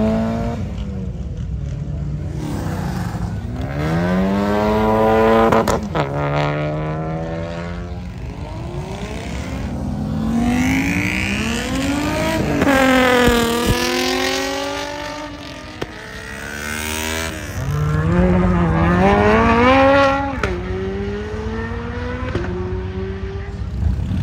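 Several cars accelerating hard in turn, among them a Mazda Miata's four-cylinder and a Nissan 350Z's V6. The engine pitch rises through each pull, with sudden drops at the upshifts.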